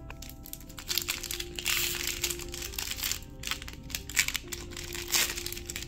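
Foil Pokémon booster pack wrapper crinkling as it is handled and torn open, over soft background music.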